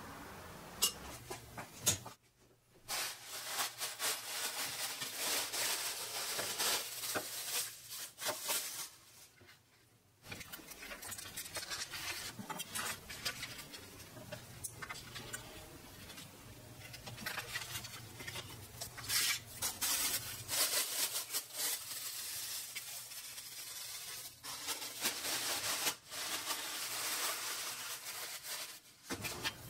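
Plastic sheeting rustling and crinkling as hands handle it: a roll of PCB photosensitive dry film and a black plastic sheet, with light rubbing and taps. Two short quiet breaks interrupt it.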